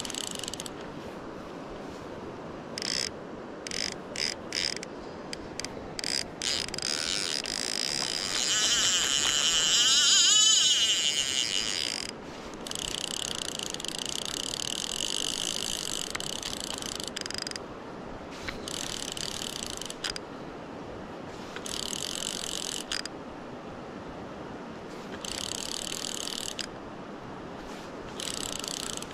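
Fly reel's click-and-pawl ratchet buzzing in bursts while a hooked salmon is played on a fly rod. There are several short bursts at first and a longest, loudest run of about four seconds near the middle, then further stretches of a few seconds each.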